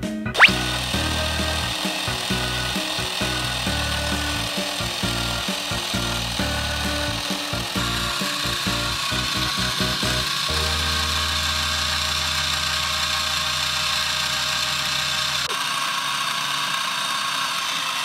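Steady rasping, grinding noise with background music underneath, starting with a quick rising whistle and cutting off sharply.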